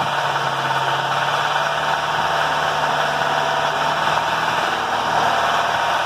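BMW engine running steadily at raised revs with a rattle from the engine. The rattle comes from a faulty intake VANOS (variable valve timing) cam gear.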